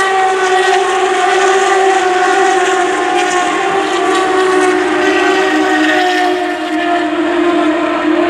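A pack of Turismo Carretera race cars running past at speed, their engines blending into one loud, steady drone that slowly drops in pitch.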